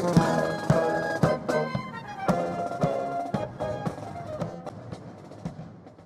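Military brass band playing, with a drum beating about twice a second under the brass; the music fades away toward the end.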